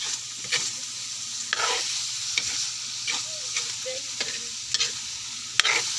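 Ground pork and chopped tomatoes sizzling in a wok while being stirred with a spatula: a steady frying hiss with repeated scrapes and taps of the spatula against the pan, about once or twice a second.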